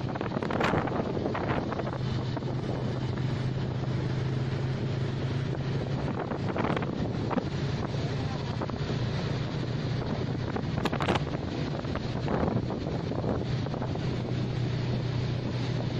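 Wind rushing over the microphone on a moving motorcycle, over the steady drone of the motorcycle engine, with a few louder gusts.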